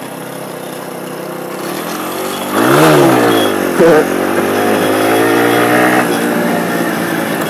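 125cc motorcycle engine accelerating hard, the revs climbing and then dropping at gear changes about three and four seconds in, running high, then falling as the throttle is eased about six seconds in. Wind rushes over the microphone throughout.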